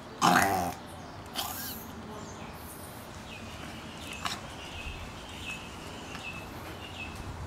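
A chihuahua reverse sneezing: one loud burst about a quarter second in and a weaker one about a second later, then faint high squeaks.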